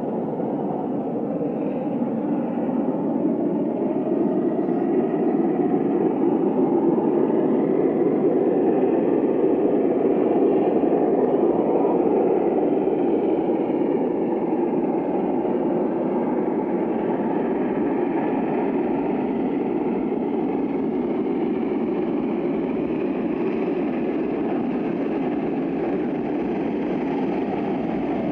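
LNER V2 steam locomotive 4771 Green Arrow hauling a train, a steady rush of exhaust and running noise that grows louder over the first ten seconds or so, then eases slightly.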